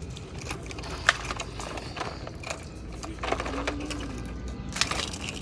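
Irregular clicks and clatter of rocks knocking against toy dump trucks and an excavator being played with, over a low steady rumble.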